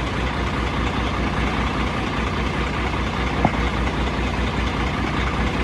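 Heavy truck's diesel engine running steadily with a deep, even drone. A single brief click comes about three and a half seconds in.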